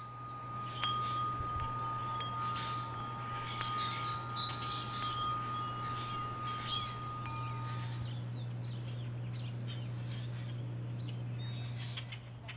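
Metal tube wind chime ringing, with long overlapping tones that die away about two-thirds of the way through. Birds chirp over it, with a steady low hum underneath.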